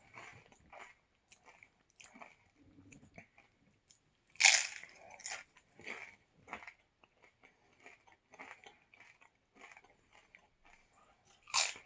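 A person biting into a crisp fried taco shell, one loud crunch about four and a half seconds in, then repeated crunchy chewing close to the microphone.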